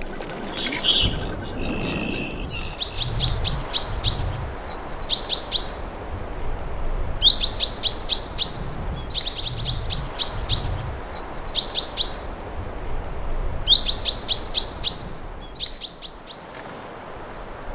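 A common goldeneye taking off from the water in the first seconds, with a short whistle and splash. Then a male common chaffinch sings, in repeated short phrases of quick, high trilled notes with pauses between them.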